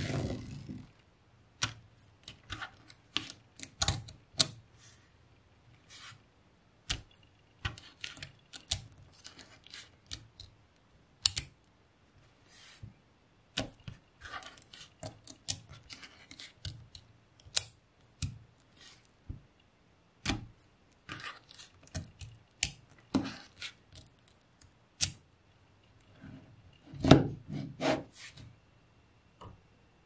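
Small magnetic balls clicking and clacking as they snap together and are pressed into place by hand: irregular sharp clicks, with a louder rattle of them near the end.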